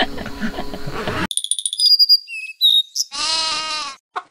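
Cartoon sound effects on a logo stinger: after about a second of background, a sudden cut to a string of short high whistle tones and chirps, then a held, wavering bleat-like call lasting about a second.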